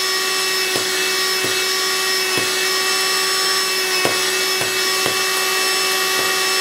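Vacuum cleaner running steadily with a constant motor whine, pulling air through the holes of a perforated MDF vacuum bed to hold paper strips down. Soft ticks come every second or so as a finger presses on the paper.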